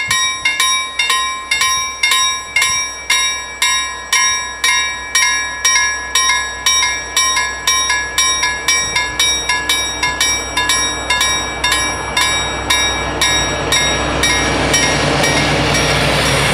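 Electric level-crossing warning bells ringing rapidly, about three strikes a second. About fourteen seconds in the bells stop and the rumble of an approaching freight train rises.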